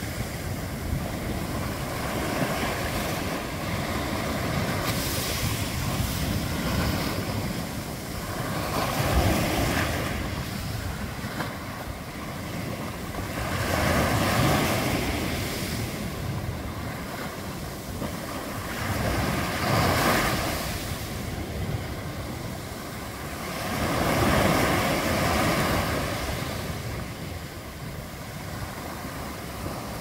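Sea waves breaking and washing around rocks at the shore, swelling louder and easing off about every five seconds.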